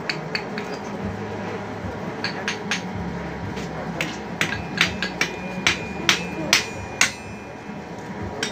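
Blacksmith's hammer striking metal at a forge: a few light blows from about two seconds in, then harder, steady blows about twice a second that stop about a second before the end, each leaving a high metallic ring.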